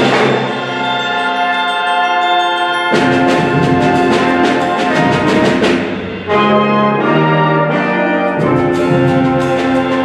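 School concert band of brass and woodwinds playing held chords that change about three, six and eight seconds in, the low instruments coming in fuller at the first and last change.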